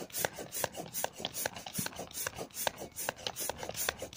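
Manual air pump worked in quick, even strokes, about four or five a second, forcing air down a hose into a vinyl inflatable.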